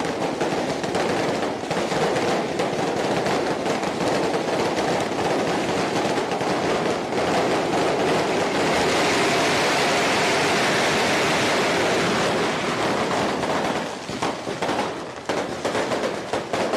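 A long string of firecrackers going off in a rapid, continuous crackle, thinning to scattered separate bangs over the last couple of seconds.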